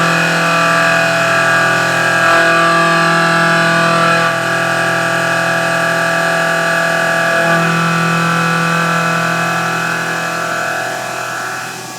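Milling machine cutting a metal part, the spindle and cutter making a steady pitched hum that changes character about four seconds in and again past seven seconds, easing slightly near the end.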